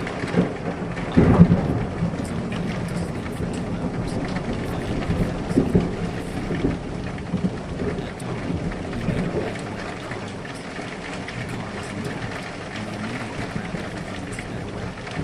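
Steady rain sound effect, with a loud rumble of thunder about a second and a half in and smaller rumbles a few seconds later.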